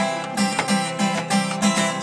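Acoustic guitar strummed in a steady rhythm, about three strums a second, accompanying a sung comedy song.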